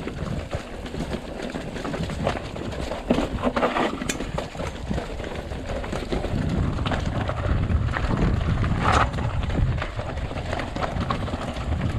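Mountain bike rolling fast down a rocky, leaf-covered trail: tyres crunching over loose stones, with frequent knocks and rattles from the bike over the bumps. A steady low rumble of wind on the microphone runs underneath.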